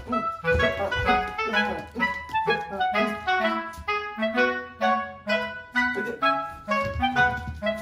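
Background music: a quick melody of short, separate notes over a bass line, playing steadily.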